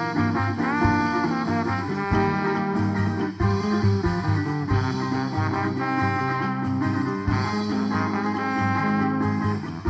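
Instrumental passage of a Maranhão bumba-meu-boi toada, with horns playing the melody over bass and drums and no singing.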